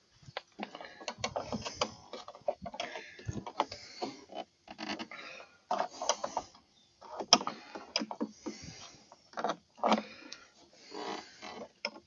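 Hand work on a car door: irregular plastic clicks, knocks, rattles and scraping as door-panel parts and clips are handled and fitted. Sharp knocks stand out about seven and a half and ten seconds in.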